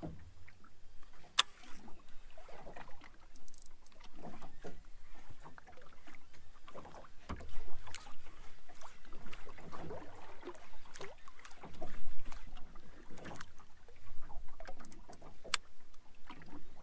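Water lapping and splashing unevenly against the hull of a small fishing boat at sea, with scattered short knocks and clicks; the splashing swells louder about seven and a half seconds in and again around ten to twelve seconds in.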